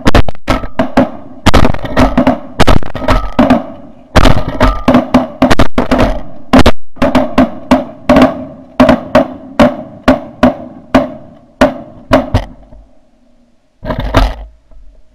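A rapid volley of shotgun blasts from several snow goose hunters firing together at a flock overhead: dozens of shots, often several a second, tailing off with a last shot near the end. Goose calls run steadily beneath the shooting.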